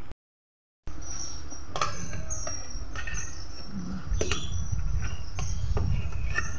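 Wooden spoon scooping cooked rice out of an aluminium pot, with a few sharp knocks of the spoon against the metal pot and plate, over a steady low rumble. Brief high chirps are heard in the first half.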